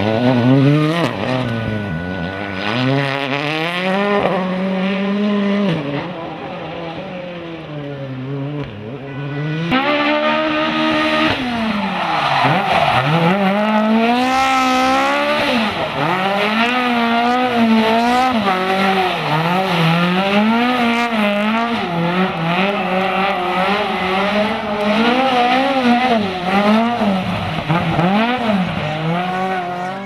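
Rally car engines revving hard, the revs climbing and dropping again and again through gear changes and slides, with fast throttle blips while a car spins on the spot; tyres squealing.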